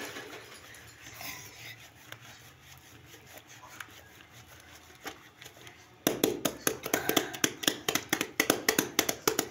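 Wet cloth being hand-scrubbed with soap on a concrete floor: faint rubbing at first, then about six seconds in a steady run of sharp wet scrubbing strokes, about four a second.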